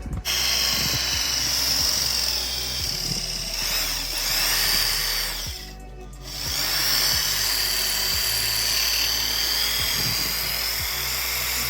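Power drill boring into a snapped steel stud in a turbo housing, a sustained high-pitched whine, stopping briefly about halfway and starting again.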